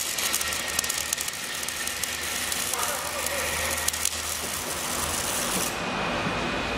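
Factory-hall background noise: a steady hiss with scattered light clicks and knocks over a low hum that fades about five seconds in, with voices in the background.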